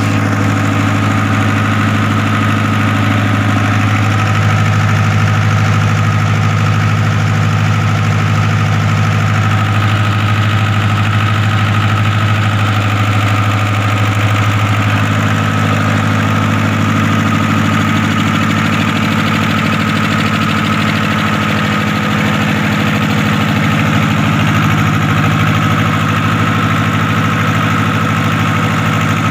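Kirloskar HA294 diesel engine running steadily at constant speed after a major overhaul, with a strong low hum and no change in speed.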